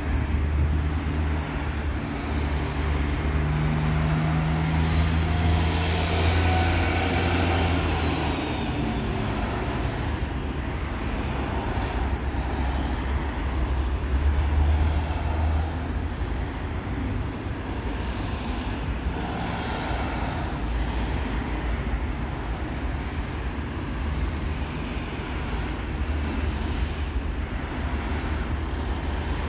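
Steady low rumble of road traffic passing close by, engines swelling and fading as vehicles go past, loudest about halfway through.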